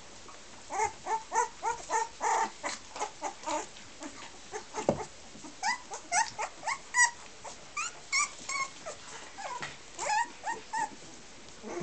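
A litter of puppies about two and a half weeks old whimpering and squeaking: many short, high yips in quick succession, several a second, with a short lull about four seconds in.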